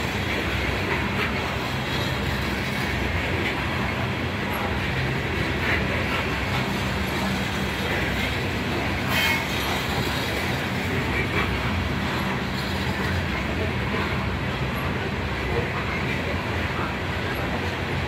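Coal cars of a unit coal train rolling past: a steady rumble of steel wheels on rail, with scattered clicks and a sharp clank about nine seconds in.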